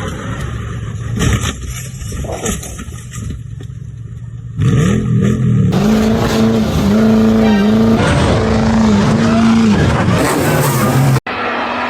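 Off-road 4x4 engine revving hard. About four and a half seconds in it jumps to a loud, high, sustained note that dips briefly several times, then drops back shortly before an abrupt cut.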